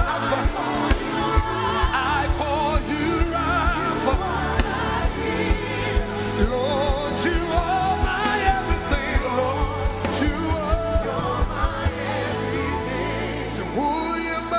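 Gospel worship song performed live: singing with vibrato over a band with bass and drums.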